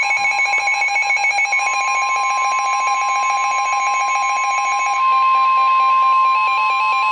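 NOAA Weather Radio 1050 Hz warning alarm tone, steady and loud, with a second alert tone that steps rapidly back and forth over it and changes to a slower stepping pattern about five seconds in. It is the alarm that comes before a broadcast warning.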